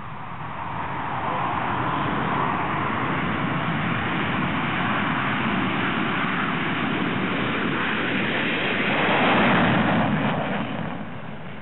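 Three Northrop F-5E Tiger II jets, each with twin General Electric J85 turbojets, at takeoff power on a formation takeoff run. Loud jet noise builds about a second in, holds steady, and is loudest around nine to ten seconds in as the jets pass, then fades near the end.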